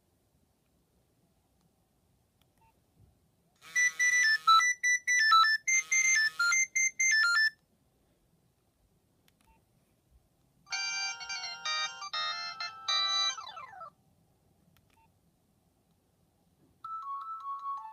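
Nokia 3510 ringtones played through a Nokia 7100 Supernova's loudspeaker, short electronic melodies one after another with pauses between. One plays about four seconds in, a second about eleven seconds in that ends in quick falling glides, and a third starts near the end.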